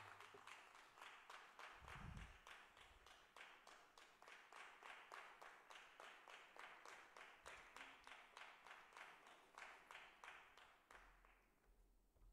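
Audience applauding, faint and steady, dying away near the end.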